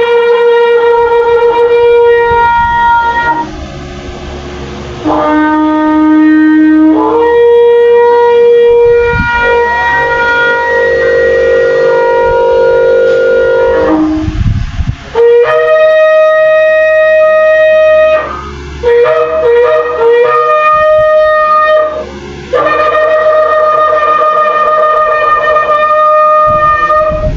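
Shofar blown in a series of loud, long held blasts, each several seconds, separated by short breaks, with the note jumping between a lower and a higher pitch.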